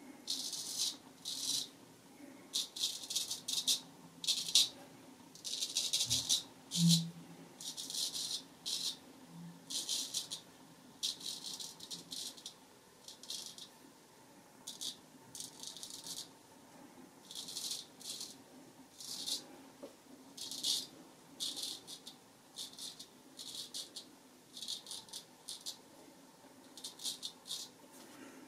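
Straight razor scraping through lathered facial stubble in a long series of short strokes, each a crackly rasp as the hairs are cut, with short pauses between strokes.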